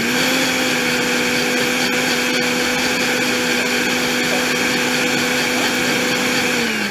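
Countertop blender running at one steady speed, blending an orange purée, with an even motor hum. Near the end it is switched off, and the hum falls in pitch as the motor spins down.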